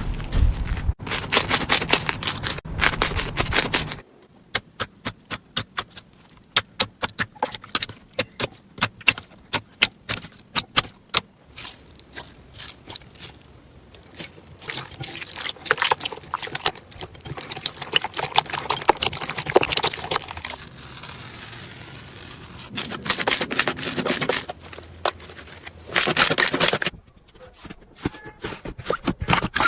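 Slime being squeezed and poked by hand, giving crackling and popping clicks. Partway through it becomes a run of separate sharp pops, then goes back to denser crinkly crackling, with a sudden change of sound a few times.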